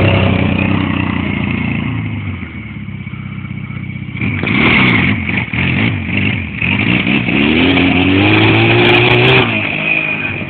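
Barossa 250cc quad bike's engine revving under hard throttle, easing off about two seconds in, then blipped repeatedly from about four seconds and held on a rising rev from about seven seconds as the front end is lifted into a wheelie and the quad pulls away.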